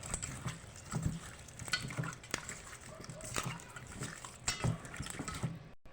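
Raw chicken pieces being mixed in a soy sauce and vinegar marinade: irregular wet squelches and knocks of the meat moving in the bowl, cutting off abruptly near the end.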